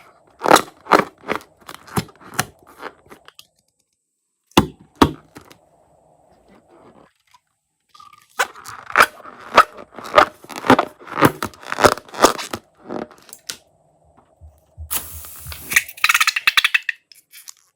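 Slime being worked by hand, giving runs of sharp crackling pops separated by short pauses. Near the end comes a denser, noisier squelch.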